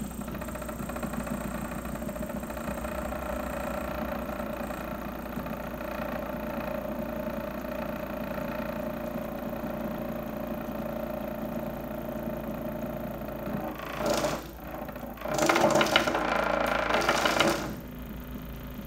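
A small electric motor, running on supercapacitor power, belt-drives the large pulley of a three-phase motor used as an alternator, whirring steadily with a hum. About fourteen seconds in there is a brief louder burst of noise, and then a louder, noisier stretch of about two seconds.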